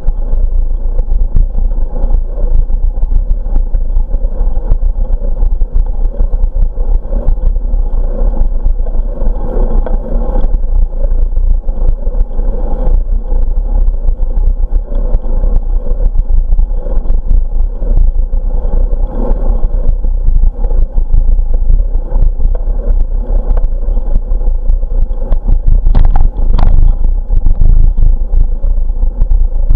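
Wind buffeting the microphone of a camera on a moving bicycle, with rumble and small knocks from the tyres rolling on asphalt. There is a sharper clatter near the end.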